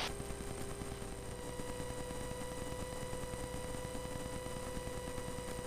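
Faint steady hiss with a thin, constant hum tone, the background noise of a cockpit intercom and radio audio feed between transmissions.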